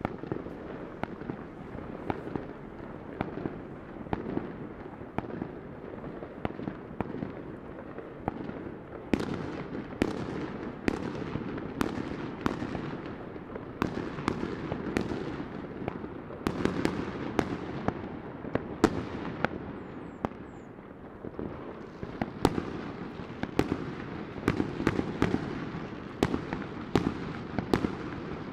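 Fireworks going off all around: a continuous rumble of bursts with frequent sharp bangs, which come thicker and louder from about nine seconds in.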